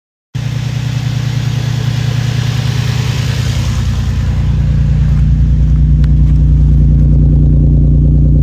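Infiniti G35's 3.5-litre V6 running at idle, cutting in abruptly and growing louder partway through with no change in pitch. It is still misfiring at idle, which the shop puts down to oil-contaminated ignition coils and spark plugs.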